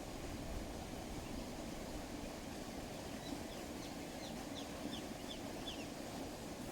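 A bird calling a series of about eight short, high, down-slurred notes, roughly three a second, starting about halfway through. A steady low rumble of outdoor wind noise lies underneath.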